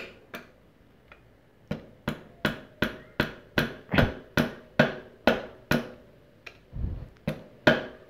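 Rubber mallet tapping the steel hooked spanner wrench from a Bafang BBS02 kit, tightening the locking ring that holds the mid-drive motor on the bottom bracket. The knocks come in a steady run of about two or three a second, break off briefly, then a few more come near the end.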